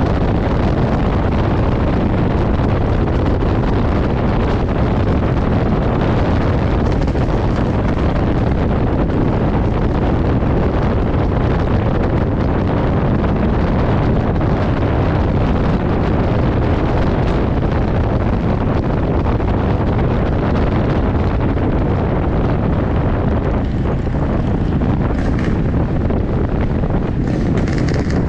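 Steady wind rushing over the microphone, mixed with the road and engine noise of a moving vehicle on a ride.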